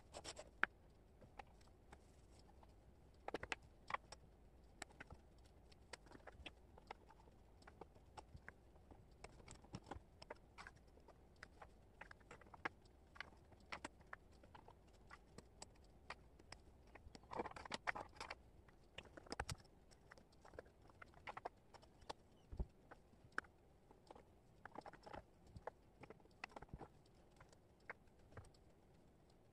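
Faint, scattered clicks and taps of wooden jigsaw puzzle pieces being picked up, sorted and fitted together, with a denser clatter of pieces a little past halfway.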